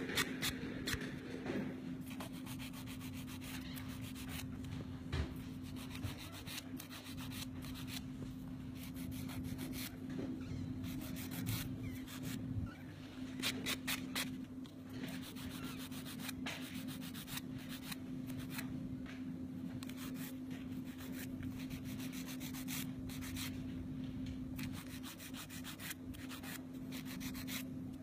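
Nail buffer block rubbed rapidly back and forth over long artificial nails, a run of short scratchy strokes. A steady low hum runs underneath.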